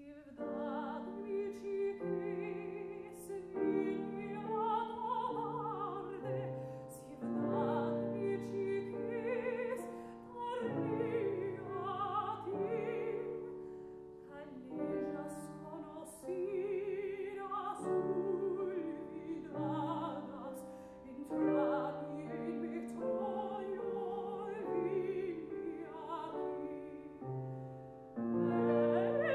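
Classical soprano singing with wide vibrato, accompanied by a Fazioli grand piano. The music begins out of a brief silence, and near the end it swells louder after a short lull.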